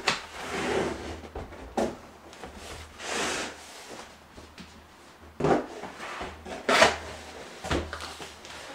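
Cardboard boxes being handled: an inner box worked out of its outer shipping carton, cardboard rubbing and scraping against cardboard, with several knocks of the boxes against the desk, the loudest about two-thirds of the way through.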